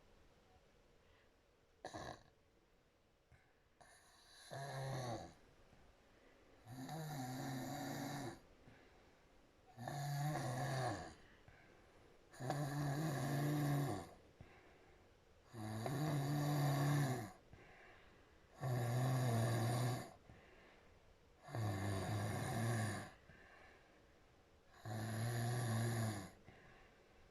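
A woman snoring with her mouth wide open: a pitched snore every three seconds or so, eight in all, growing louder over the first few and then holding steady. A short sharp click comes about two seconds in, before the snores begin.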